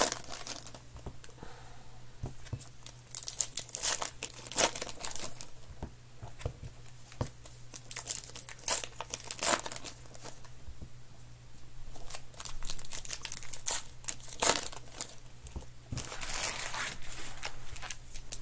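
Baseball card pack wrappers crinkling and tearing in the hands as packs are opened and cards handled, in irregular crackles, with a denser rustle near the end. A low steady hum runs underneath.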